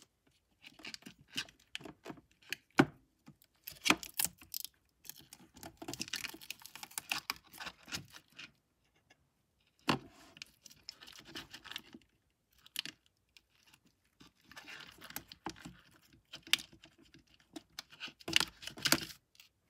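Old battery cells being handled and worked out of a MacBook Pro's aluminium case: irregular rustling and scraping with scattered clicks and knocks of the pack against the case, the sharpest about 3 and 10 seconds in.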